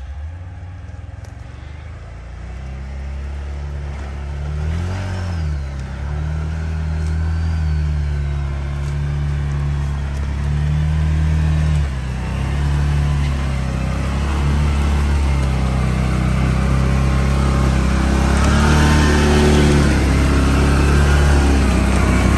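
Can-Am Outlander 6x6 ATV on rubber tracks crawling slowly over rough, uneven ground, its engine running at low speed with the revs rising and falling. It grows steadily louder as it comes close, and a faint high whine rises and falls a few seconds in.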